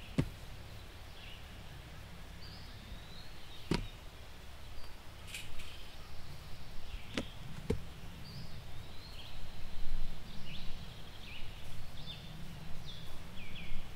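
Outdoor ambience: a steady low rumble of background noise with small birds chirping on and off, and a few sharp clicks or knocks, about four seconds in and again around seven seconds in.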